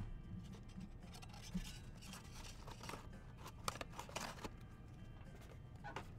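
Faint scraping and rustling of trading cards being handled, with a few short scratchy sounds between about one and a half and four and a half seconds in.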